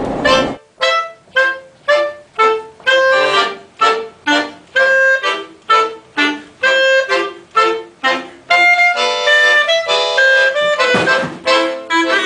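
Chromatic button accordion and clarinet playing a duet. It starts with short detached notes, about two a second, and changes about two-thirds of the way through to longer held notes that come more densely.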